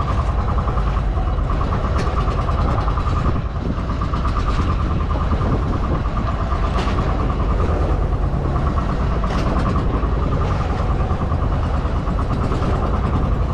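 Small boat engine running steadily, with a fast even pulsing and a constant low rumble.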